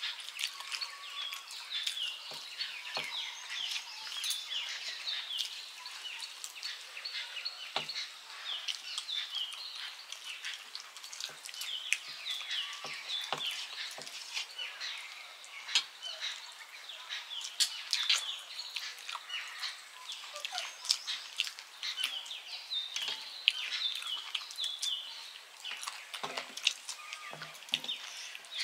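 Small birds chirping over and over in short falling notes, over close eating sounds: sharp clicks and smacks of fingers working rice on steel plates, and chewing.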